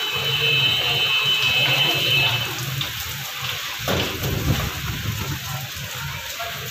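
Steady heavy rain falling on rooftops, with wind buffeting the microphone and a strong gust about four seconds in. A high, steady tone sounds over the rain for the first two seconds or so.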